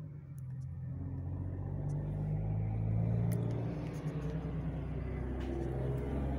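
Semi truck's diesel engine rumbling low as the rig pulls out and drives past, growing louder about three seconds in.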